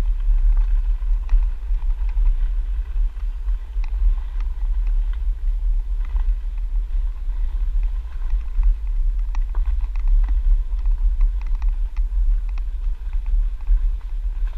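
Heavy wind buffeting on the microphone while riding fast over a gravel trail, with scattered clicks and rattles from the wheels and bike over the gravel.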